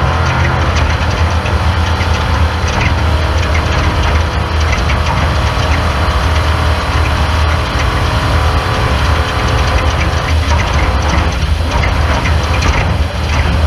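Off-road race car engine running with a steady, loud low drone, under a constant rattle of clicks and knocks.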